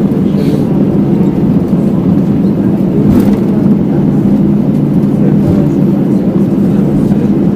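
Cabin noise of an Airbus airliner rolling out on the runway just after landing: a loud, steady rumble and hum of the engines and wheels, with one brief knock about three seconds in.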